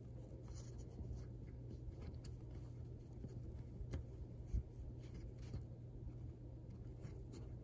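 Faint clicks and light rustling of small magnetic building blocks being handled and snapped together, a few scattered clicks over a low steady hum.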